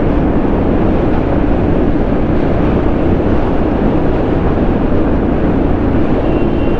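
Royal Enfield Classic 350's single-cylinder engine running steadily while riding, mixed with steady wind and road noise on the rider's camera microphone.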